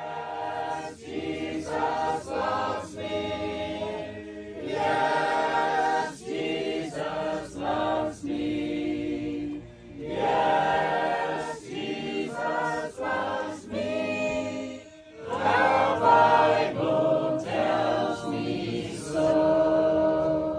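A choir of mixed voices singing a cappella in harmony, in long held phrases with short pauses between them.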